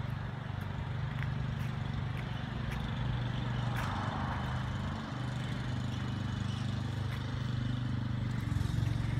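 A steady low engine hum, with the sound of a car passing about four seconds in.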